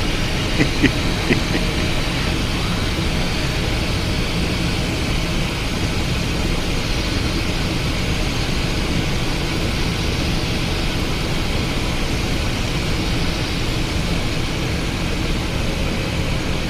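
Steady cockpit noise of a Cessna Citation XLS business jet on short final and in the flare: airflow and the twin turbofans at approach power, with a few short clicks about a second in.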